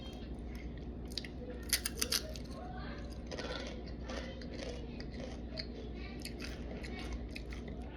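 A person eating Takis rolled tortilla chips: faint crunching with a few sharp crackles, the loudest about two seconds in.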